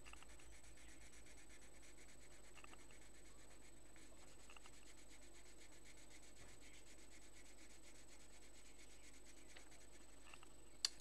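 Faint scratching of a pencil shading back and forth on paper. A single sharp click near the end.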